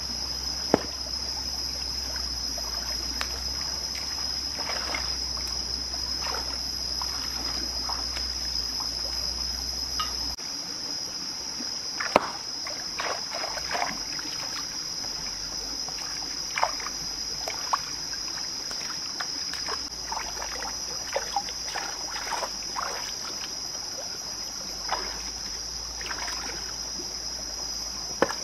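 Shallow forest stream trickling over rocks, with irregular splashes and sloshes as a person scoops water with a plastic bag and wades barefoot through it. A constant high-pitched buzz sits over the water.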